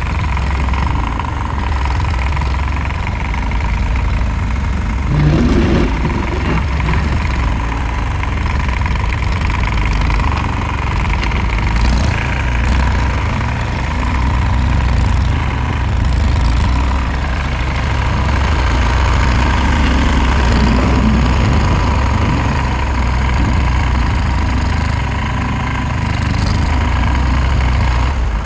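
Tractor engine running steadily, with a thin steady whine over the low engine rumble.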